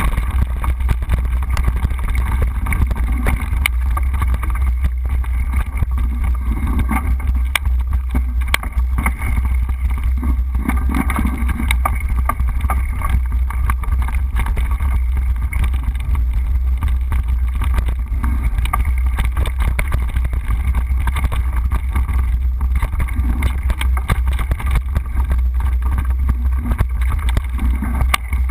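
Steady wind buffeting on the microphone of a camera riding on a moving mountain bike, with many small rattles and knocks as the bike rolls over a rough dirt trail.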